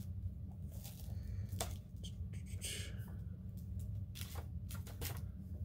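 Pages of a hardcover comic omnibus being flipped by hand: several short paper flicks and rustles, with a longer sliding rustle about three seconds in. A steady low hum runs underneath.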